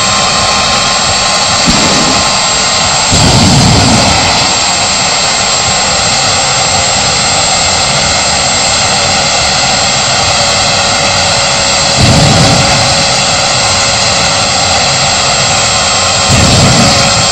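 Solar T-62 gas turbine running, with a steady high whine over a loud rushing noise. Several short, deep whooshes rise out of it, around three to four seconds in, near twelve seconds, and again near sixteen seconds, as flame shoots from the exhaust.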